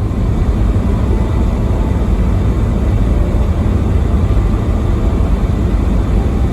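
Car on the move: a loud, steady low rumble of engine and road noise.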